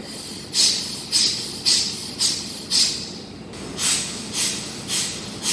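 A man's rapid, forceful breaths through the nose with one nostril held closed by hand, in fast alternate-nostril pranayama (anulom vilom): sharp hissing puffs about two a second, five in a row, a short pause, then four more.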